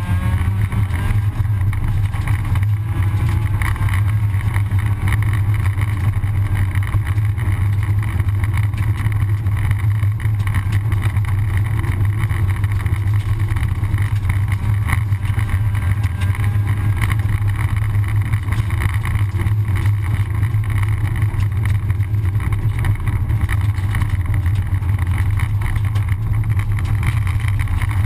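Rally car engine running under load, heard from inside the cabin as a steady low drone, with tyre and gravel noise from the loose dirt road.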